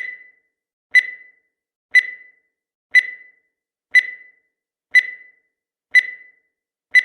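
Countdown timer sound effect: a short high electronic beep once every second, each fading quickly, ticking off the last seconds of the countdown.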